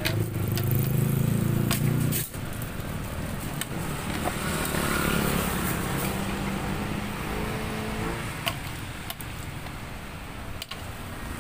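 Motor vehicle traffic passing on the road: an engine hum that is loudest in the first two seconds and cuts off abruptly, then another, weaker, in the middle, over a steady background hiss. A few sharp clinks of a metal strainer against a steel cooking pot.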